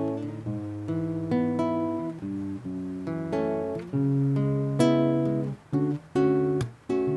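Acoustic guitar strumming chords in an instrumental passage of a song, with no voice. In the second half the chords come as short hits that are cut off sharply, with brief gaps between them.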